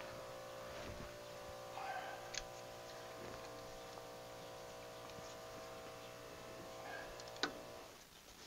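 Air compressor motor running with a steady hum, cutting off near the end as its tank comes up to pressure. A couple of sharp metallic clicks from the wrench and socket on a rusted spark plug, the louder one shortly before the compressor stops.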